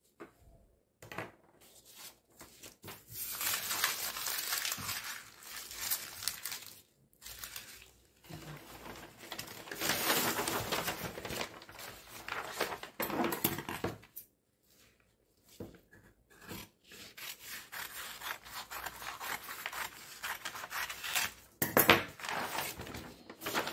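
Sheets of brown kraft pattern paper rustling and crinkling as they are handled and spread out on a table, in several long stretches with short pauses, and a sharp snap about 22 seconds in.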